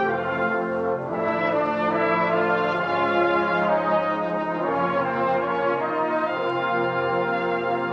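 School concert band playing held, brass-led chords, each sustained for a second or more before the harmony shifts.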